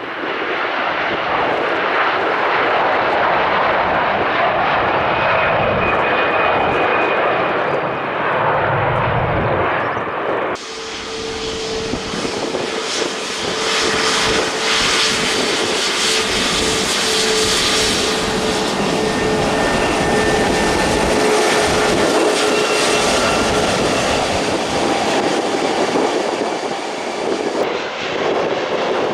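Jet airliner engines running loud and steady as aircraft pass. About ten seconds in, the sound cuts abruptly to a second aircraft whose engine noise carries a steady whine that sinks slightly in pitch.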